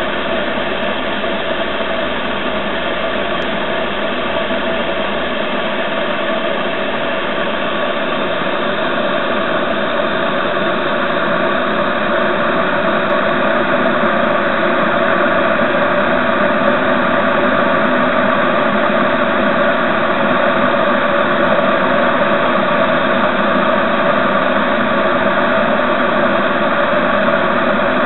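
Water flowing through a radiator: a steady rushing hiss with a ringing drone in it, growing a little louder about halfway through.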